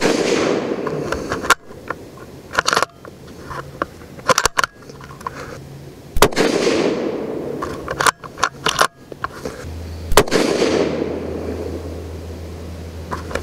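Three rifle shots from a bolt-action Ruger American Predator Gen 2 in .223 Remington with its factory radial muzzle brake, about six and then four seconds apart, each trailing off for a second or two. Short metallic clicks between the shots come from the bolt being worked.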